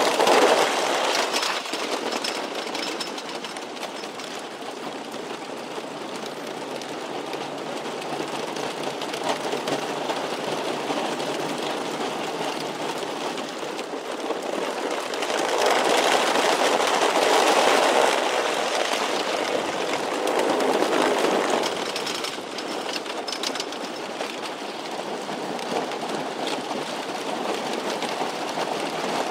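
Roller coaster train rolling and rattling along its steel track, its rumble swelling and fading as cars pass, loudest near the start and twice past the middle.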